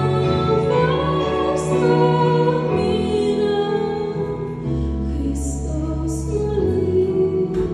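Slow Christian song: a woman singing long, held notes over sustained instrumental accompaniment with a deep bass line.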